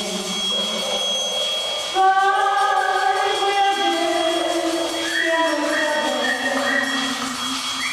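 A small group of voices singing together in long held notes, stepping to a new pitch every second or two.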